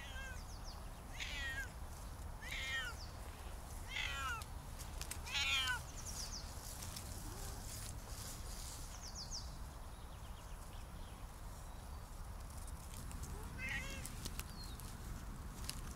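Siamese cat meowing four times, about a second and a half apart, each call falling in pitch, then once more near the end.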